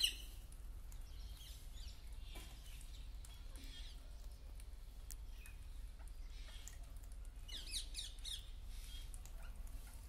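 A flock of green parakeets calling: a sharp screech right at the start, scattered calls, then a quick run of shrill calls about three-quarters of the way through.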